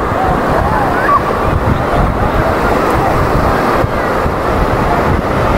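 Loud, steady rushing outdoor noise with heavy low rumble, with faint voices in the background near the start.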